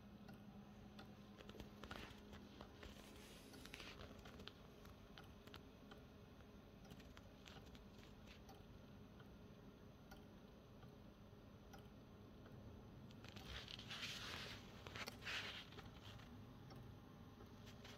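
Faint ticking of a skeleton clock's grasshopper escapement, over a steady low hum, with a few seconds of rustling about three-quarters of the way through.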